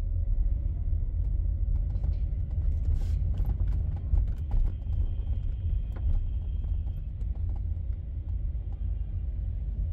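City street ambience: a steady low rumble of traffic, with scattered clicks and knocks and a faint high tone for a few seconds in the middle.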